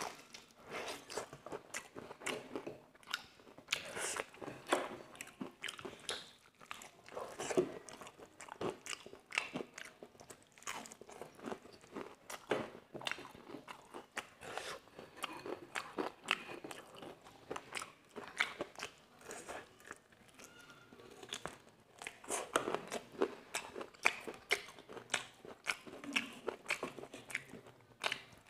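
Close-miked chewing and biting of crispy fried chicken: irregular crunches and wet mouth sounds, picked up close by a clip-on microphone.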